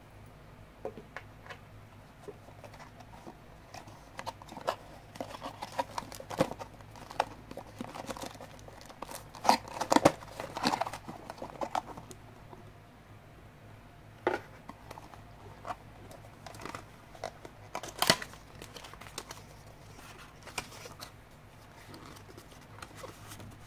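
Packaging being unwrapped and handled: plastic crinkling and tearing with scattered sharp clicks and taps, busiest from about four to twelve seconds in, with one sharp click near eighteen seconds.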